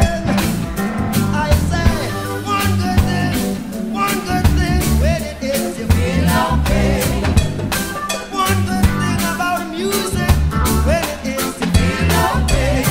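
Background music: an upbeat ska-style song with singing, bass and a steady drum beat.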